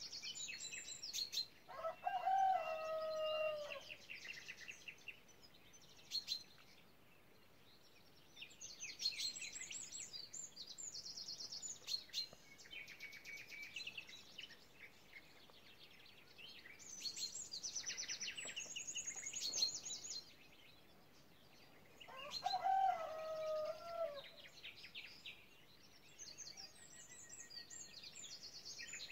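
Songbirds singing in bursts of fast trills and high chirps, phrase after phrase with short pauses between. A rooster crows twice, a couple of seconds in and again past the twenty-second mark.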